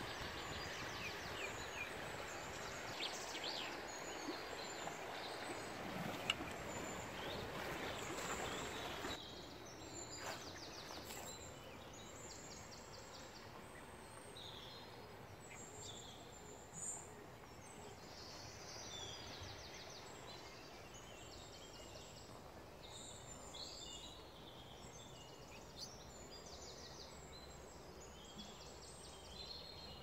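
Running river water rushing for about nine seconds with birds chirping over it, then a sudden drop to a quieter background where songbirds sing, one repeating a short trill every couple of seconds.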